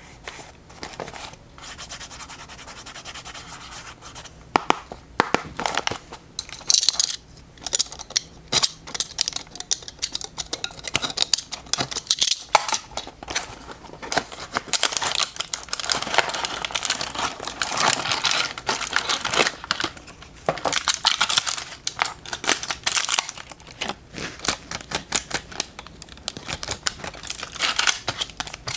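Hands handling and unwrapping packaging: irregular rustling, rubbing, crinkling and scraping, busiest midway through.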